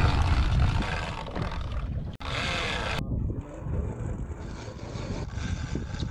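Wind buffeting the microphone on a boat: an uneven low rumble with a hiss above it, and brief muffled voices about two seconds in. The sound changes abruptly twice, around two and three seconds in.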